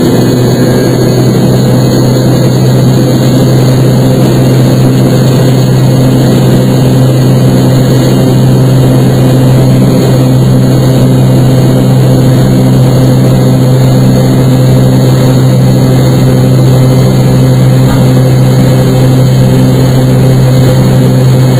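Jet airliner engines heard from inside the passenger cabin: a loud, steady drone with a strong low hum that holds even throughout.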